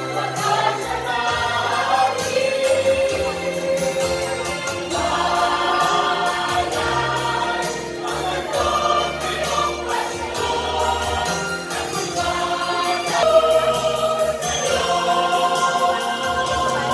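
A choir singing a Christmas carol in held notes over instrumental accompaniment, with a moving bass line and a light, steady percussive beat.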